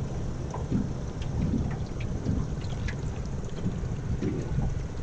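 Low wind rumble on the camera microphone, with light splashing and dripping as a catfish is held in the lake water at the side of the boat.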